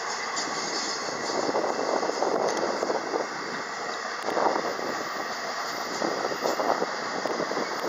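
Freight train hopper wagons rolling past, a steady rumble of wheels on rail that surges louder every second or two.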